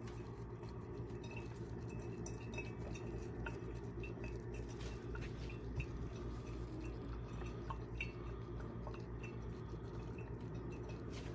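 OXO Brew 8-cup drip coffee maker brewing: water dripping, with many small irregular pops and ticks over a steady low hum.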